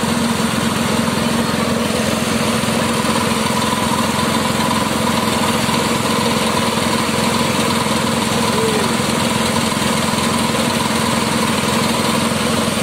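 Engine-driven grass chopper (forage cutter machine) running steadily, its small engine and the spinning cutter making an even, unbroken drone.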